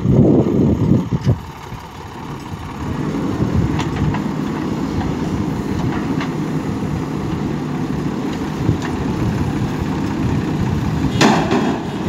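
Diesel engines of a farm tractor and a JCB 3DX backhoe loader running as the tractor reverses its trailer. The engine noise is uneven for the first second or so, then settles into a steady drone that gets louder near the end.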